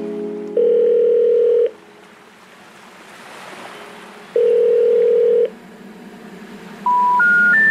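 Telephone line tones. A steady low tone sounds twice for about a second each, with faint hiss between. Near the end come three short beeps rising in pitch, the special information tone that signals a call that cannot be completed.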